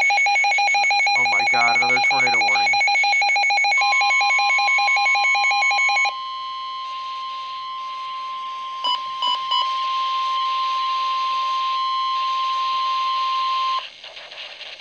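Emergency alert tones for a tornado warning: a rapidly pulsing electronic alarm for about six seconds, then a single steady high tone, the weather-radio warning alarm, for about ten seconds, with three short blips about nine seconds in, cutting off shortly before the end.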